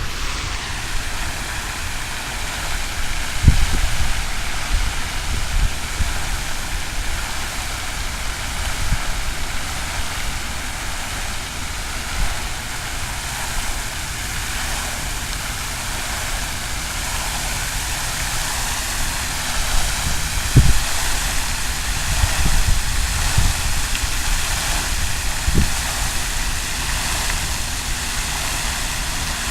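Fountain water splashing steadily, a continuous rushing hiss, with a few brief low thumps on the microphone.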